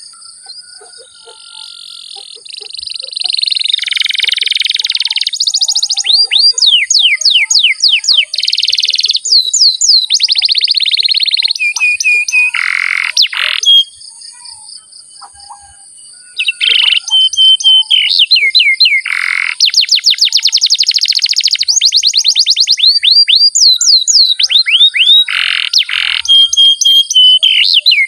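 Domestic canary singing a long rolling song of fast trills and rapid repeated sliding notes, quiet for about the first two seconds and pausing briefly around the middle.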